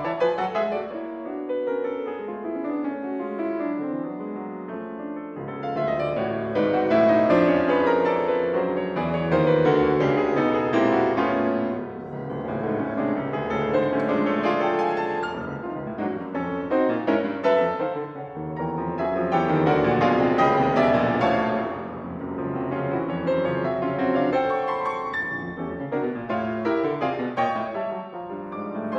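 Solo piano playing classical music: a dense passage of many-note chords, quieter at first, growing louder about five seconds in and then moving in repeated swells.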